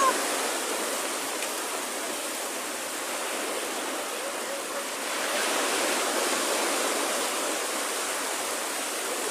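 Small waves breaking and washing up a sandy beach: a steady rush of surf that swells a little about five seconds in.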